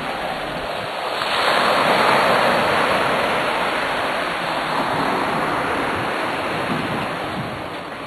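Sea surf: a wave washing in, swelling from about a second in and then slowly ebbing away.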